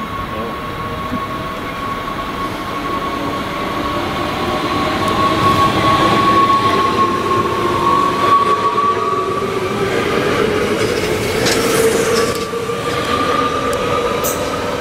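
NS Sprinter Lighttrain electric multiple unit running past along the platform: a steady whine that glides slowly in pitch over the rumble of wheels on rail, loudest about halfway through as it goes by, then easing off.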